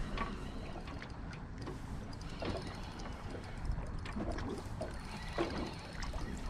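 Water lapping and gurgling against the side of a small fishing boat, under a steady low rumble, with a few faint ticks.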